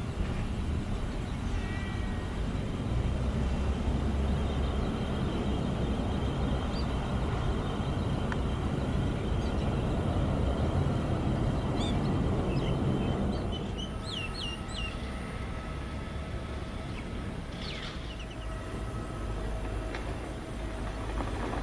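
Airbus A320-216 jet engines (CFM56-5B) heard at a distance, a steady rumble that falls away about two-thirds of the way through. A few short bird chirps come in over it.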